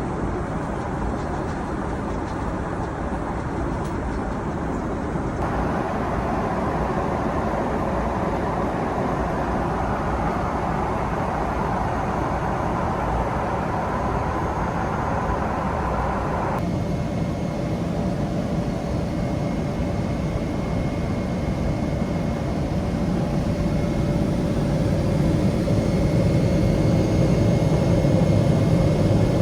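Steady rushing cabin noise of a Boeing 777-300ER airliner, engine and airflow noise heard from inside the cabin. Its tone changes abruptly about five seconds in and again about seventeen seconds in, and it grows somewhat louder near the end.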